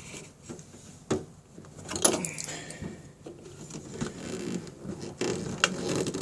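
Small hand tools clicking and scraping against the plastic housing of a car's rear window switch as it is pried at its retaining tabs. Sharp clicks come about a second in, at two seconds and near the end, with light scraping between.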